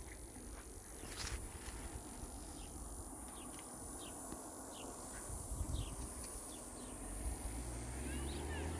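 Outdoor field ambience: a steady, high-pitched insect drone, with a few short chirps scattered through it and a low rumble of wind underneath.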